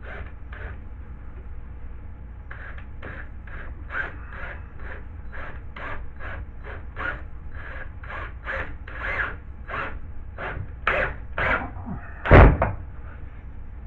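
Hand tool worked back and forth on drywall or wood, a run of short rasping strokes about two to three a second that grow stronger, with one loud knock near the end.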